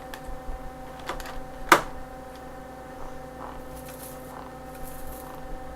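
Kitchen handling noises: one sharp click about 1.7 seconds in, then scattered lighter taps and rustles, over a steady electrical hum.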